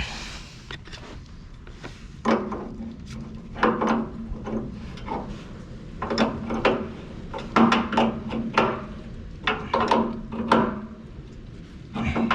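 A spanner working a valve's fitting on heating pipework: a series of irregular metallic clunks and scrapes.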